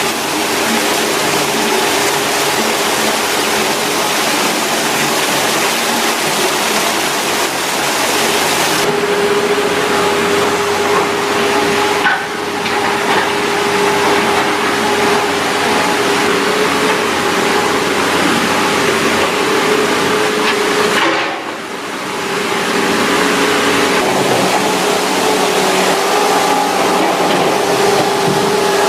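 A heavy machine's engine running steadily under a loud, even rushing noise, with a few abrupt changes in the sound.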